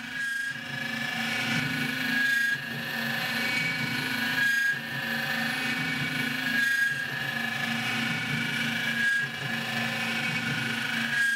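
Tormach PCNC 1100 CNC mill running a 60-degree single-form V thread mill through a first-pass external thread cut in 6061-T6 aluminium bar at 60 inches per minute: a steady machining whine. The whine dips briefly about every two seconds.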